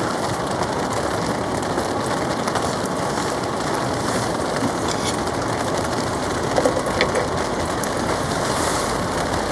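Heavy rain beating steadily on a TC (polycotton) tarp.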